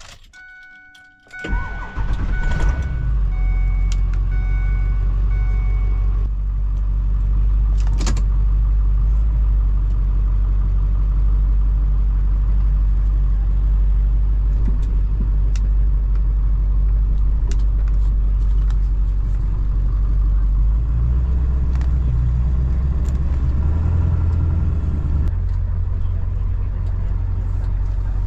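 An engine starts about a second in and then runs steadily, with a few short beeping tones in the first seconds. Its note shifts slightly around two-thirds of the way through.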